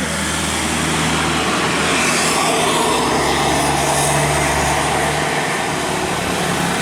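Heavy road vehicle passing close by: a steady low engine drone with tyre and road noise that swells a little in the middle of the pass.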